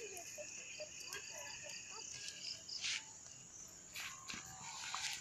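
A steady, faint, high-pitched chorus of crickets in the evening grassland, with a few short noises near the middle and end.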